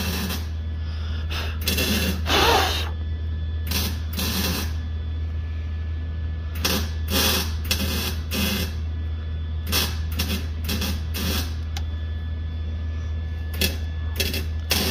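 TIG welding arc on steel with a steady low hum, broken by short hissing, crackling bursts at irregular intervals as filler rod is fed into the weld.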